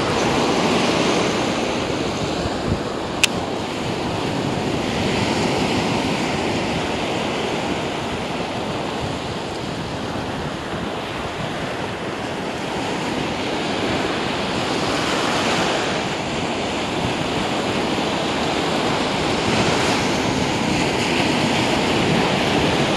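Ocean surf breaking and washing in over shallow sand around the angler's legs, swelling and easing as each wave comes in, with wind buffeting the microphone. A single sharp click about three seconds in.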